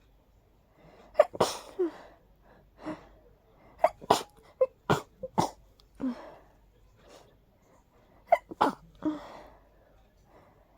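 A person sneezing over and over in a hay fever sneezing fit: sharp sneezes in several quick clusters, a few seconds apart.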